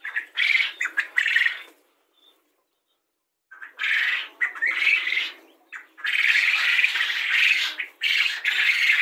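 A flock of Japanese quail calling together in a pen, a dense, harsh chatter of many birds. It comes in short stretches at first, cuts out completely for about a second and a half, then comes back and runs on unbroken from about two-thirds of the way through.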